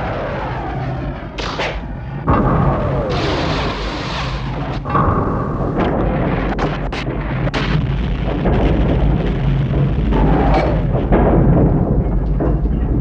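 Film sound effects of a destructive action sequence: a dense run of booms and crashes over a heavy rumble, with sharp hits scattered throughout. It gets louder about two seconds in, and falling whistle-like sweeps come about a second in and again near the end.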